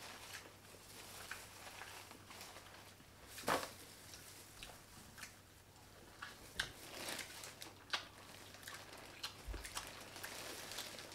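Seafood being picked out of a plastic bag with plastic-gloved hands: crinkling plastic and scattered sharp clicks of shells being pulled apart, with a louder click about three and a half seconds in, and some eating sounds.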